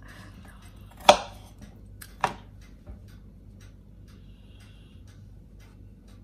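Two sharp clacks of kitchen utensils or dishes, about a second apart, the first the louder, over faint scattered light ticking.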